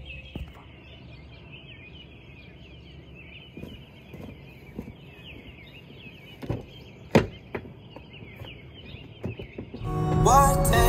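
Birds chirping in a steady, faint chorus, with a few sharp knocks in the middle, the loudest a single clack. Music with singing comes in loudly near the end.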